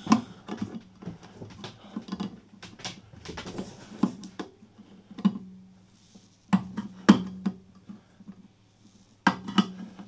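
Leatherman ARC multi-tool can opener, its blade freshly sharpened with a Dremel, levering around the rim of a metal can and cutting the lid: a run of irregular sharp metallic clicks as each bite goes through, cutting easily, with a pause of about a second and a half near the end.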